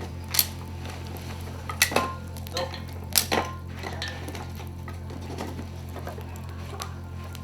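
A handful of sharp clinks and knocks, the loudest about two and three seconds in, a couple of them ringing briefly like struck metal or crockery, over a steady low electrical hum.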